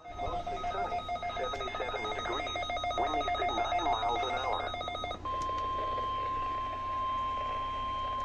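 Weather radio broadcast audio: a steady whistling tone with a wavering, voice-like sound over it. About five seconds in this is cut off by the 1050 Hz weather radio warning alarm tone, a single steady tone being sounded for the weekly test.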